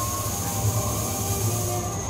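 Scare-zone ambient soundtrack from outdoor speakers: a low steady drone that pulses slightly, with faint held tones sliding and shifting above it and a thin high whine.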